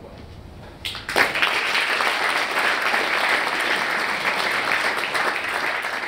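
Audience applauding, starting about a second in and continuing steadily.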